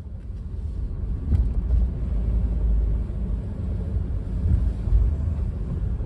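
Car interior noise while driving: a steady low rumble of engine and tyres on the road.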